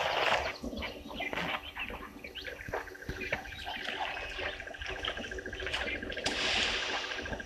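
Wild birds calling and chirping, many short chirps overlapping, with a louder call near the start and another about six seconds in; a steady, fast trill joins about three seconds in.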